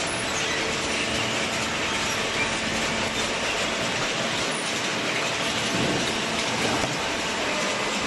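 Industrial machinery running: a continuous mechanical clatter and hiss over a faint steady hum.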